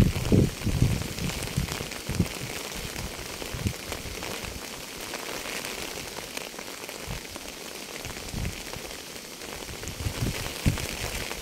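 Rain falling on a surface: a steady hiss with irregular low thuds of drops landing close by, thickest at the start and again near the end.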